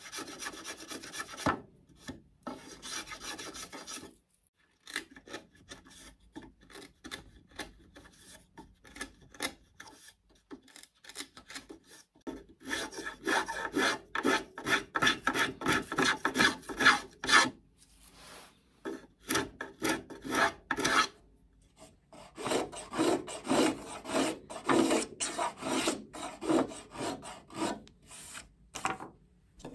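A small hand-held blade shaving wood in quick, repeated strokes with short pauses, paring down the oversized wooden deck edge of a scale-model kayak to fair it in.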